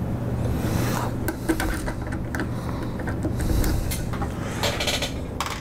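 Handling sounds from taking Torx screws out of a computer's plastic case: short scrapes and small clicks of the screwdriver and hands, over a steady low hum.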